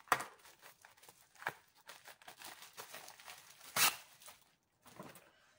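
Plastic packaging around rolled diamond-painting canvases crinkling and rustling as it is handled, with a few louder rustles, the loudest a little before four seconds in.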